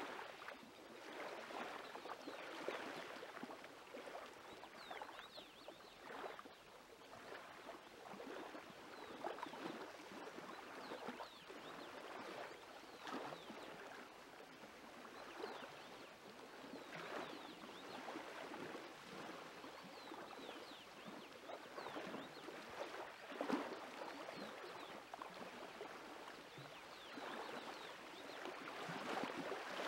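Hands squelching and squeezing wet flour-and-water dough while mixing it in a pot: an irregular run of soft, wet squishes.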